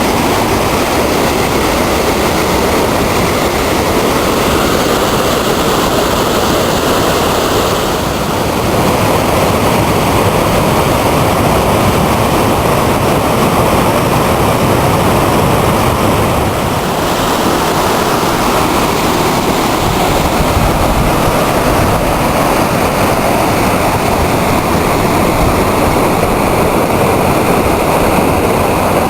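River rapids rushing, a loud steady noise of fast-moving water.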